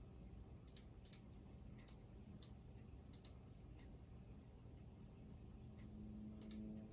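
Computer mouse button clicking over a near-silent room: a run of sharp clicks, several in quick pairs, in the first few seconds, then a pause and one more pair near the end.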